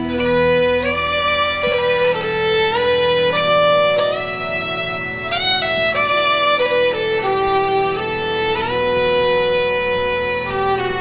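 Background music: a violin-like bowed lead melody moving note to note over a steady accompaniment.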